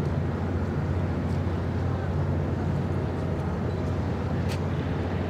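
Low, steady hum of the container ship CMA CGM Louis Bleriot's engines as she passes close by, with a faint click about four and a half seconds in.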